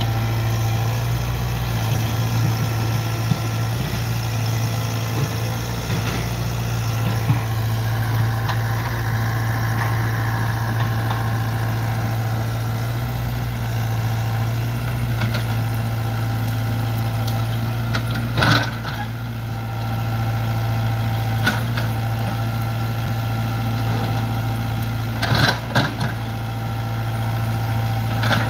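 Diesel engine of a compact crawler excavator running steadily with a low hum as the hydraulic arm works. Sharp knocks come about 18 seconds in and twice near the end.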